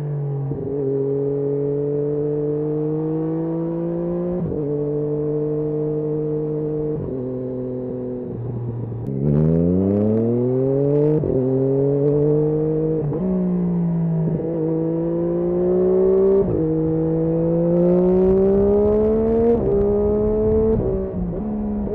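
Triumph Daytona 675's three-cylinder engine under way, its note climbing steadily and then dropping sharply over and over as the rider works the throttle and gears. About nine seconds in it falls low and then climbs steeply and louder under hard acceleration.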